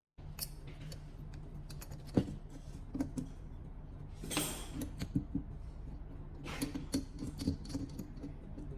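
Scattered clicks and knocks of small hard objects being handled, with two short scraping rustles, over a steady low hum.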